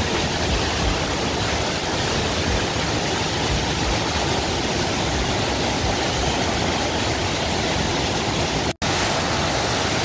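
Large mountain waterfall, about 50 m high, and the cascade below it in heavy flow, making a steady, loud rush of falling water. The sound drops out for an instant about nine seconds in.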